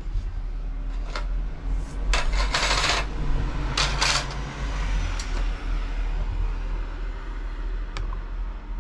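Steel bicycle disc brake rotors clinking and scraping against each other as they are picked up and handled, with a few sharp metallic clicks and two longer jangles about two and four seconds in. A steady low rumble runs underneath.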